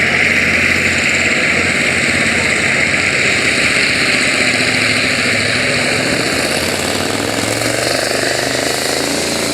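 Pickup truck engine running hard at high revs during a truck pull, a loud steady sound that eases off a little in the second half.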